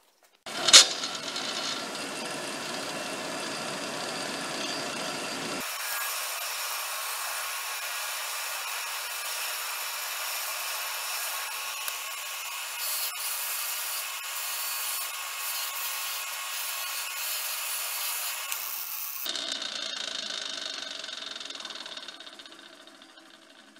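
Electric bench grinder switched on with a click and running steadily; its sound changes character a couple of times and fades near the end.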